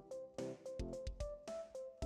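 Instrumental background music with a beat.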